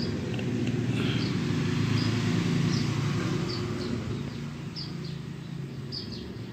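Small birds chirping in short, repeated high notes over a low rumble that swells and then fades.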